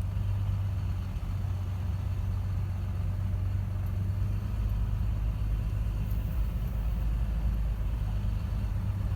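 Engine of the vehicle towing a trailer loaded with the wheat harvest, running steadily at low speed with an even low rumble.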